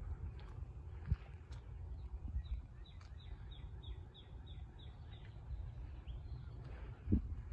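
Eastern grey squirrel barking: a quick run of about ten short, even, high barks, about three or four a second, starting a couple of seconds in, over a steady low rumble of background noise, with a brief thump near the end.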